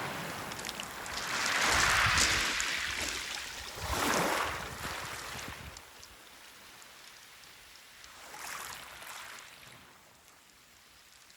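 Waves washing up a pebble beach and drawing back, the water hissing and the stones rattling. Several swells come in the first half, then a weaker one about eight seconds in, and it dies down near the end.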